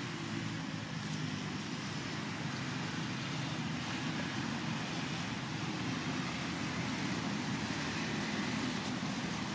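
Steady outdoor background noise: a low rumble with a hiss over it, unbroken and even, with no distinct calls or knocks.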